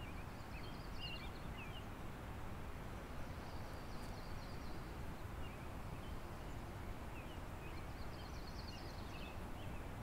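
Steady rushing of a river out of sight, with small birds singing short, high, twittering phrases several times over it.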